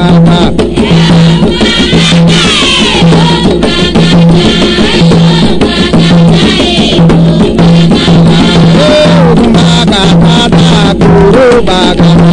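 Afro-Brazilian terreiro ritual music: hand drums and a rattle playing a dense, steady, fast rhythm, with a low drum tone recurring evenly.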